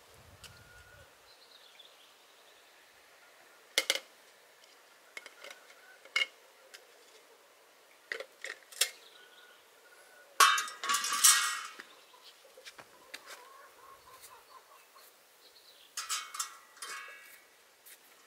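Metal clanks and clinks from a large round iron griddle sheet and kettles being handled: scattered sharp knocks, with the loudest ringing clatter about ten seconds in and another burst near the end.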